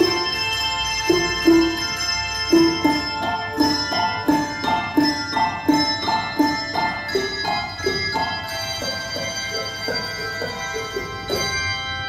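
Handbell choir playing: a tune of single struck bell notes at about two a second, each ringing on, then a fuller chord of many bells held ringing and fading out as the piece closes.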